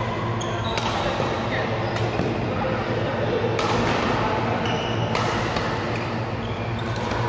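Badminton rackets hitting a shuttlecock in a doubles rally: sharp hits about every second to second and a half, over a steady low hum.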